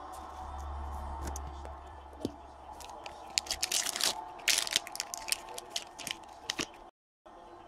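A trading card pack's wrapper being torn open by hand, with a run of sharp crinkling and crackling that is loudest about halfway through. The sound cuts out completely for a moment near the end.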